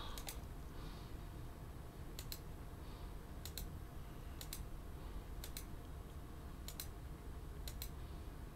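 Computer mouse clicks, each a quick press-and-release double click, about seven spaced roughly a second apart, faint over a low steady hum.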